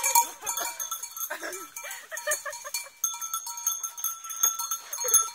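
Bells clanking and ringing as sheep run about, over patter and rustle on leaf-covered ground.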